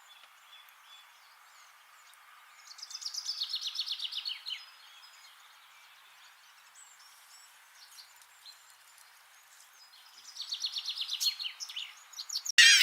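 A small bird singing two bursts of a fast trill of quickly repeated, falling notes, each lasting about two seconds, over faint background noise. Right at the end a cut brings in a much louder honking call.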